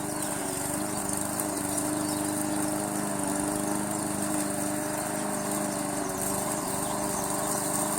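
Small gasoline lawn mower engine running steadily at an even speed on a home-built remote-control mower, with a faint steady high-pitched hiss above it.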